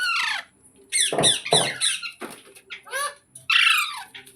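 A parrot giving a run of about six harsh squawks, each one falling in pitch, with short gaps between them.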